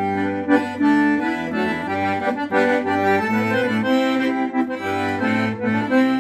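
Instrumental music led by an accordion playing a melody in quickly changing notes over low bass notes, with no singing.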